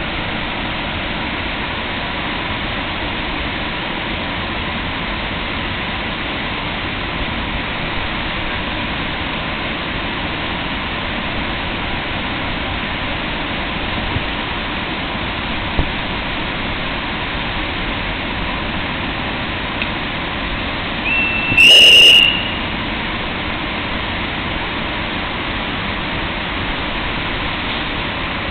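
Steady rushing noise from an EU07 electric locomotive standing at the platform with its train. About three quarters of the way through, a short shrill whistle sounds once.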